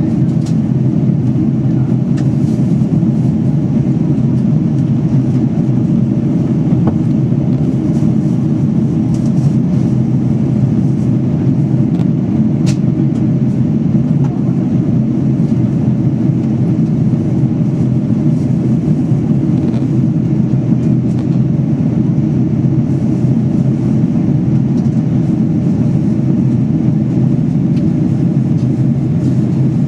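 Steady low roar of an airliner's jet engines and airflow, heard inside the passenger cabin in flight.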